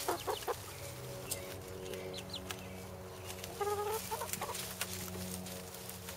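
Chickens clucking: a quick cluster of short clucks at the start and a louder run of clucks about three and a half seconds in, over a steady low hum.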